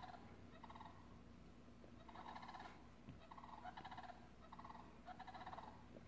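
Sandhill cranes calling: faint, rattling calls, about five in a row, each about half a second long.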